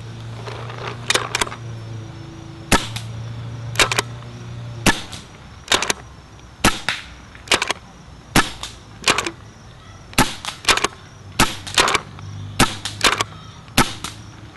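Pump-action paintball marker (Sanchez Machine SM1 with CCM internals) firing shot after shot at low regulated pressure. There are about fifteen sharp pops, roughly one a second, some followed closely by a second click.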